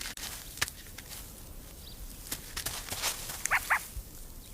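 Meerkat pup scuffling with a scorpion: faint scattered clicks and scrabbling, with two short high squeaks about three and a half seconds in.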